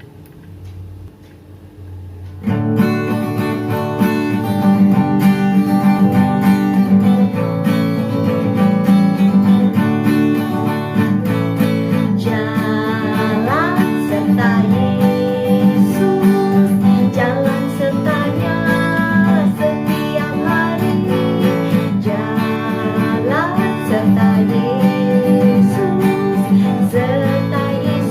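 A praise song with strummed acoustic guitar and singing, starting about two and a half seconds in.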